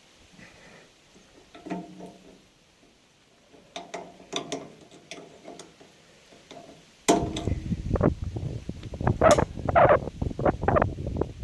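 Metal clinks and knocks from hand work on a baler's roller chain and tensioner spring, turning into a louder clatter with several sharp strikes about seven seconds in.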